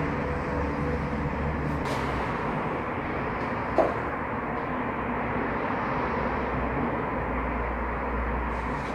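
Steady background noise with a low rumble, and one brief knock a little under four seconds in.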